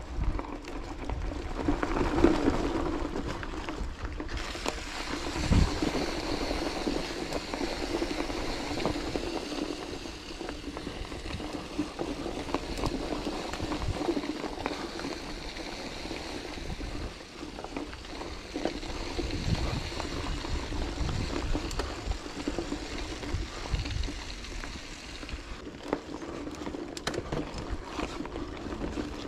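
Steady rolling noise of a bicycle ride, with scattered small rattles and knocks. A faint high steady hiss comes in about four seconds in and drops out near the end.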